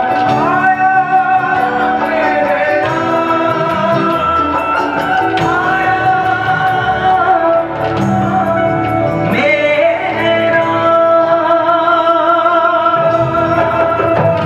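A man singing a Hindi devotional song (bhajan) with long held notes and ornamented glides, over sustained harmonium and keyboard accompaniment.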